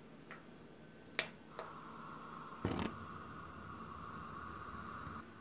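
Gas stove burner being lit under a frying pan: a few sharp clicks, then a steady hiss of the gas burner starting about a second and a half in, with a dull thump about a second later.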